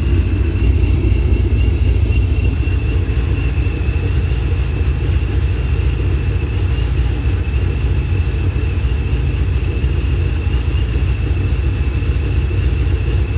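Car engine idling steadily with a deep exhaust rumble, and a thin steady high-pitched whine above it.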